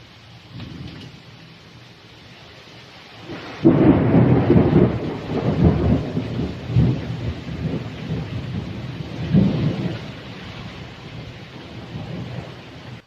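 Thunder over steady rain: a faint low rumble, then a loud clap about three and a half seconds in that rolls on in several rumbling swells and slowly fades. It cuts off suddenly at the end.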